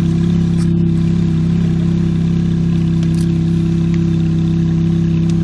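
Ferrari F430 Spider's 4.3-litre V8 running at a steady speed, its exhaust note holding one even pitch without revving.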